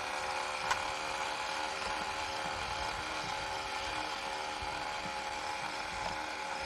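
Small electric motor of a radio-controlled toy boat (Radio Shack Fire Fighting Cruiser) running with a steady whine, with a single click about a second in.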